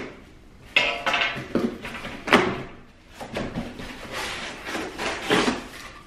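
Cardboard shipping box being opened by hand: the packing tape slit along the seam and the flaps pulled apart, a series of irregular scrapes, rips and rustles of cardboard, the loudest a little over two seconds in.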